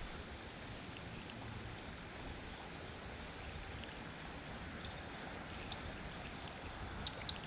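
Faint steady outdoor noise with a low rumble, and a few faint high ticks near the end.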